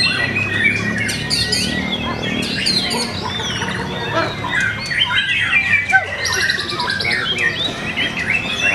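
White-rumped shama (murai batu) song: a dense, unbroken stream of varied quick whistles, chirps and fast trills, as used to provoke a caged murai into full song.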